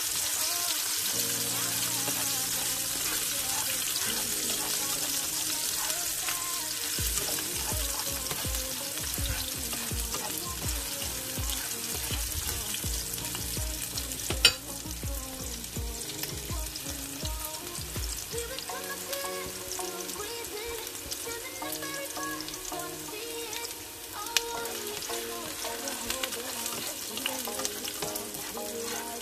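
Sliced onion, garlic and ginger sizzling in hot oil in a nonstick pan, with a spatula stirring and scraping in the pan. There is a sharp click about halfway through and a smaller one later.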